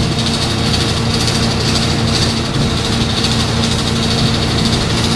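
A steady motor drone: a constant low hum with an even hiss over it, holding the same level throughout.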